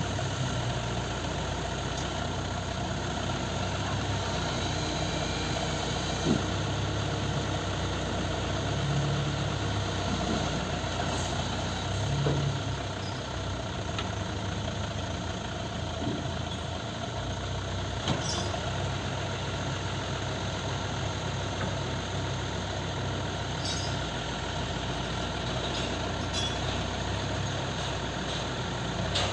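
Hino FM 260 TI truck's six-cylinder diesel engine running steadily at idle, driving the hydraulics of its loader crane while the boom is worked, with a few sharp clicks.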